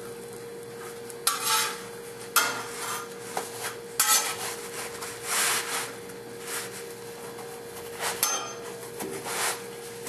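A metal spatula scraping and knocking on a flat-top griddle, with rustling of a large flour tortilla, as a burrito is folded and rolled. There are about half a dozen separate scrapes over a steady hum.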